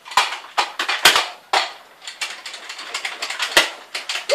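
Nerf foam-dart blasters being worked and fired: an irregular string of sharp plastic clacks and pops, with the loudest snaps about a second in and again near the end.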